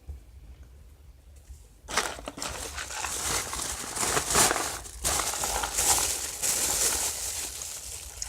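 Packaging being crinkled and crushed by hand. It starts about two seconds in and goes on in uneven surges.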